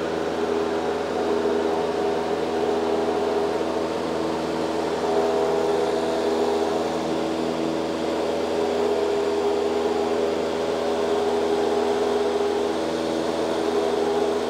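Light aircraft's engine and propeller heard from inside the cabin in steady level flight: an even, unchanging drone with several steady tones layered over it.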